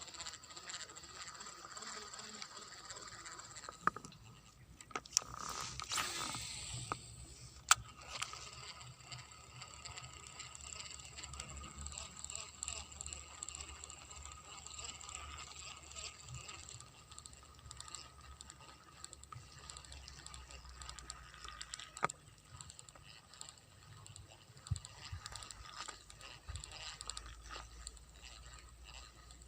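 Baitcasting reel being cranked on a lure retrieve: a faint mechanical ratcheting whirr broken by a few sharp clicks, over a steady high-pitched hum.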